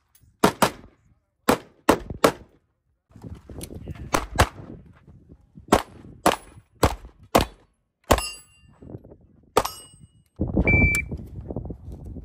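About a dozen rifle and pistol shots at a multi-gun stage, fired in quick pairs and singles. Steel targets ring after a couple of the shots, later in the sequence.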